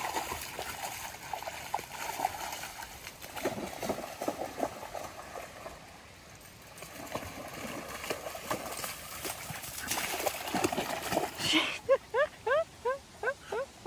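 A dog wading and splashing in a shallow, sandy creek, with irregular splashes from its steps. Near the end comes a quick run of about eight short rising calls, roughly four a second, louder than the splashing.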